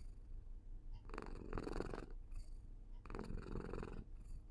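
Domestic cat purring close to the microphone: two rasping bouts of rapid pulses, each about a second long, about two seconds apart.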